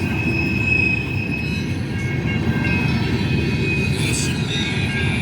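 Cars of a Union Pacific coal train rolling past at a crossing: a steady, dense rumble of wheels on rail, with a steady high squeal from the wheels.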